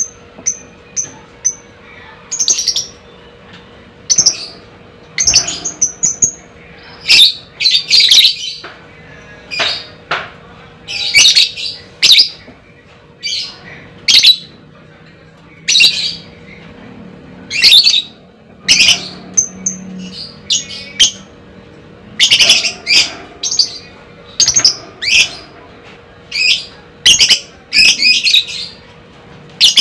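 A lovebird calling. It gives repeated shrill, high-pitched chirps and squawks in short bursts about a second apart, some bunched into quick runs.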